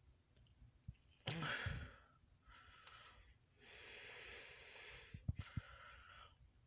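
A person breathing and sighing close to a phone's microphone: a sharp breath about a second in, then three more breaths. A few soft knocks come near the end.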